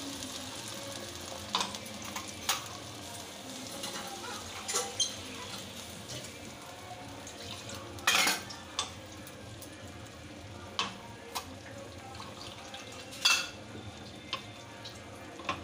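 Mustard-paste gravy with hilsa fish sizzling and bubbling in a wok, with a steady hiss and a scattering of sharp clinks against the pan, the loudest about eight seconds in.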